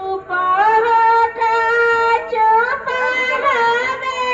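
A single high voice singing a slow melody, holding long notes and sliding between them.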